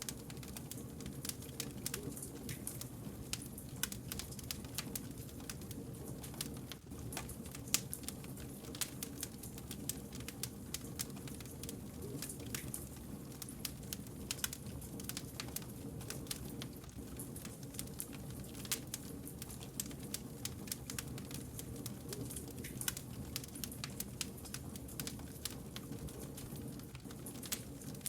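Wood campfire crackling: frequent sharp pops and snaps over a steady low rush of burning logs.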